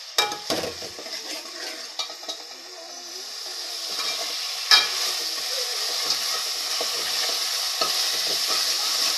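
Tomato, onion and ginger-garlic paste sizzling as they fry in oil in a steel pot, stirred with a steel ladle that scrapes and clinks against the pot. The sizzle grows louder about four seconds in, and the ladle knocks sharply on the pot just before the middle.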